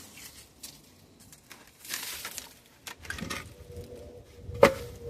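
Digging in garden soil: scattered scrapes and crunches, with a sharp strike near the end.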